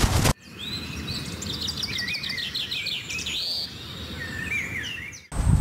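Wild birds calling over a faint low outdoor rumble, with short high chirps and whistled notes, a quick run of repeated chirps about two seconds in, and a rising whistle a little later.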